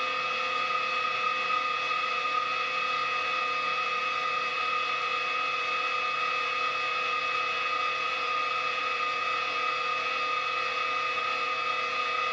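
Vertical milling machine running steadily as an end mill cuts along the side of a slot in a metal block, widening the slot. It is an even, unbroken machine sound with several steady tones over a hiss.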